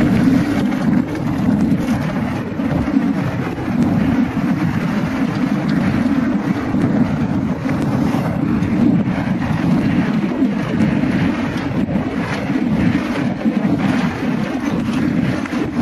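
Steady rush of wind buffeting the microphone over the rumble and rattle of a downhill mountain bike's tyres and frame running over a rough dirt trail.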